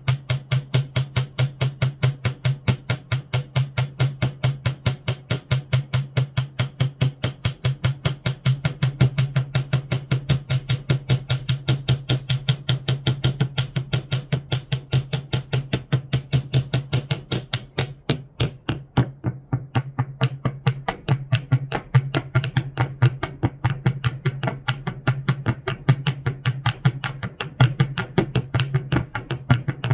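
Alga Electronic noise synthesizer playing a fast, even pulse, about seven sharp clicks a second over a steady low drone. A little past halfway the pulses briefly turn duller and quieter, then come back.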